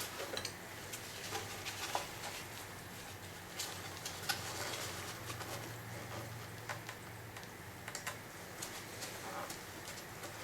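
Scattered light clicks, ticks and scrapes of a hand tool working at the sealed housing of a truck's engine control unit (ECU) to open it.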